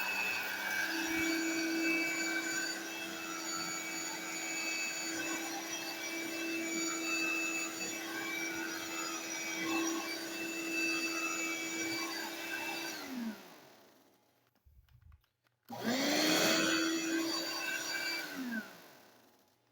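1993 Eureka Corvette handheld vacuum running steadily while sucking up shredded paper; it is switched off about 13 seconds in and its motor winds down with falling pitch. After a short silence a vacuum motor starts again, spinning up with rising pitch, runs for about two seconds, and winds down.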